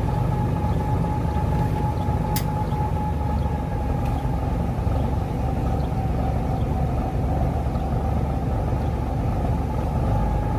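Small riverboat's engine running steadily: a low rumble with a constant steady tone over it. There is a single sharp click about two and a half seconds in.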